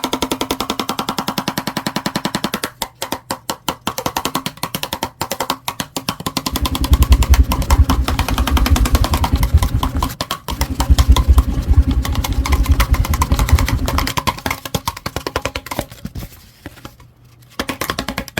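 Cardboard tube being struck by a spinning fan's blades: a fast, continuous clatter of hits with a hollow, pitched ring from the tube. From about 7 to 14 seconds a heavy low rumble joins it, the clatter breaks off briefly a few times, and it grows quieter near the end.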